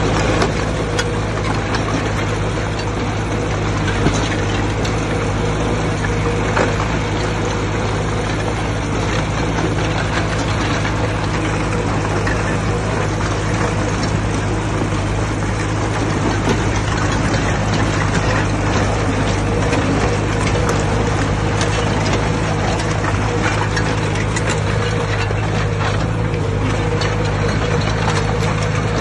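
Diesel engine of heavy earthmoving machinery running steadily, with scattered light clicks and knocks over it.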